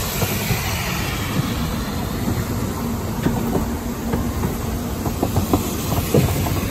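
Train running along the track: a steady rumble with irregular wheel clacks and knocks from the rails.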